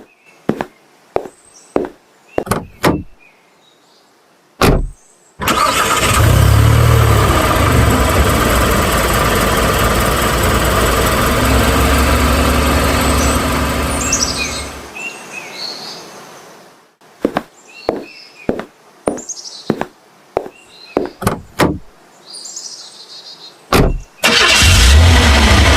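A series of sharp clicks and knocks, then a car engine sound starting and running steadily for about ten seconds before fading out. More clicks follow, and the engine sound starts again near the end.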